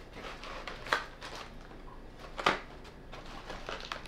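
Cardboard box and packaging being handled: light rustling with two sharp clicks, about a second and about two and a half seconds in.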